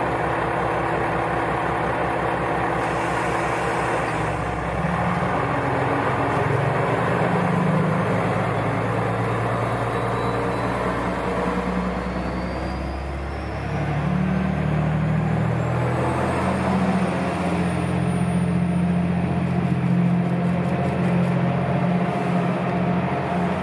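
KiHa 120 diesel railcar pulling away from a station: its engine idles with an even clatter, then throttles up about four seconds in and keeps running hard as the train accelerates. A high whine climbs steadily in pitch as it gathers speed, and the engine note dips briefly, then rises again about halfway through.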